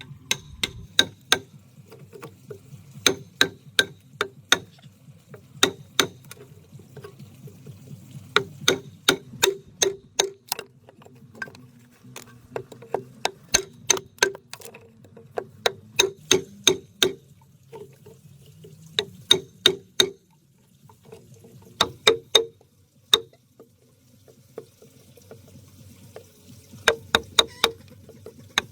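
Hammer striking in short bursts of quick sharp taps, about four a second, with pauses between the bursts.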